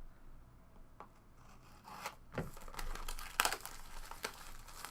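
Trading-card packs and cards being handled: several short bouts of tearing and crinkling wrapper and card rustling, the loudest about three and a half seconds in.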